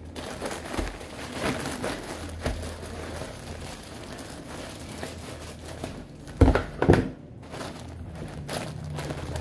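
Plastic courier mailer bag crinkling and rustling as it is cut open with scissors and pulled apart, with two louder knocks of handling about two-thirds of the way through.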